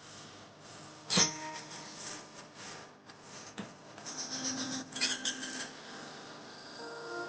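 A sharp clank about a second in, followed by scattered clicks and rubbing, scratching noises.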